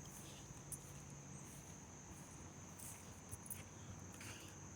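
Crickets trilling steadily in a faint high drone, with a few soft scattered clicks.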